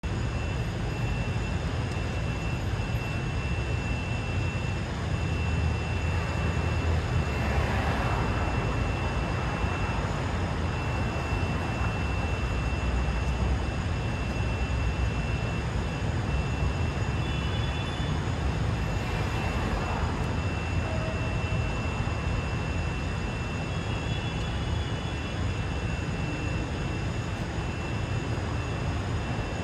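City street ambience: a steady low rumble of traffic that swells twice, about eight seconds in and again around twenty seconds. A thin steady high tone runs through roughly the first half.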